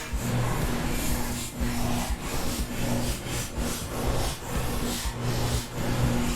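Hand tool working on a Subaru EJ253 engine during teardown: repeated rasping strokes, a couple each second.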